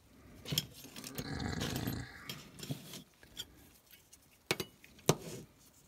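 Metal lightsaber hilt parts being handled: a rough rasping scrape for about a second and a half, then a few sharp metal clicks and clinks.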